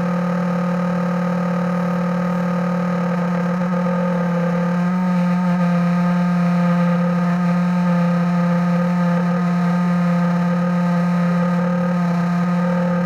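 Small model airplane engine running steadily at a constant pitch, speeding up slightly about five seconds in.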